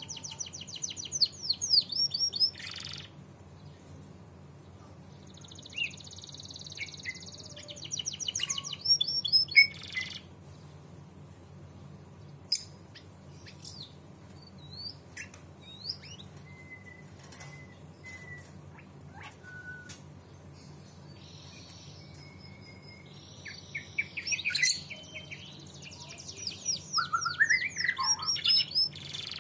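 Domestic canary singing in bursts of rapid trills: one near the start, one about a third of the way in, and a longer one near the end. Sparse single chirps and short whistles fill the quieter stretch between them, over a faint steady low hum.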